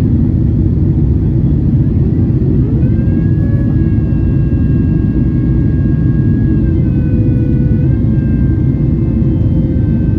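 Jet airliner engines and airflow heard inside the passenger cabin during the climb after takeoff: a loud, steady low rumble. Faint engine whine tones over it rise about three seconds in, dip around seven seconds and shift again near eight seconds.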